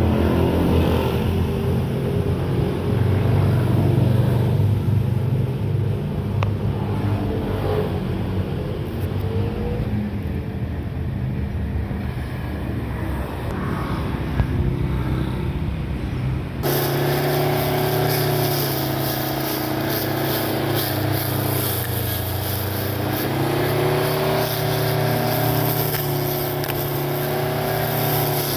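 Home-made battery-powered lawn mower's electric motor running with a steady hum. It is rougher and noisier at first; a cut about 17 seconds in brings a smoother sound with a few held tones.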